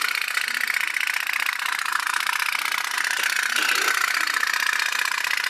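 Toy pop-pop (putt-putt) steam boat running, heated by a candle flame: steam forming in its tin boiler pushes water out of the tubes in a rapid, steady putt-putt.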